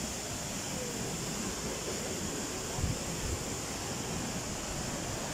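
Steady rush of a waterfall pouring into a pool, an even noise with no pauses. Two short low thumps about three seconds in.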